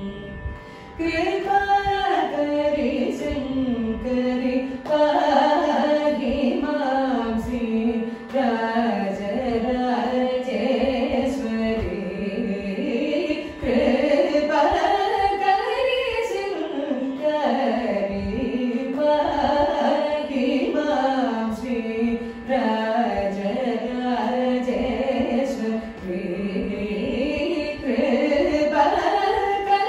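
Female voices singing the pallavi of a Carnatic kriti in raga Janaranjani to veena accompaniment, the melody sliding through ornamented pitch bends.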